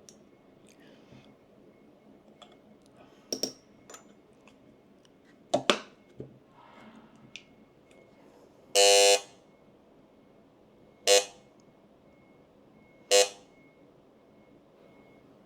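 Electronic beeping: one long beep about nine seconds in, then two short beeps about two seconds apart. Before the beeps come a few sharp clicks and knocks of handling.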